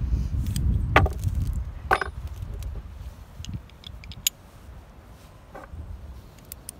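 Wind buffeting the microphone, fading out, with a few sharp metallic clicks and clinks, the loudest about one and two seconds in.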